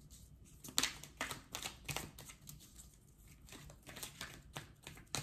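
Tarot cards being handled, with irregular soft clicks and swishes as the cards are moved and laid down.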